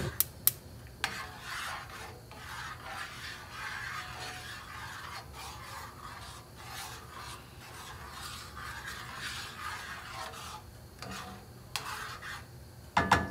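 A spoon stirring sauce in a pan, scraping against the pan in repeated strokes, with a few sharp clinks at the start and a louder knock near the end.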